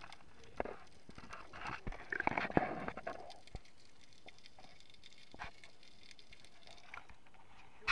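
Water splashing and bubbling around a waterproof camera as it moves through the water, with scattered muffled knocks. It is busiest about two to three seconds in, then quieter, and there is a sudden splash right at the end.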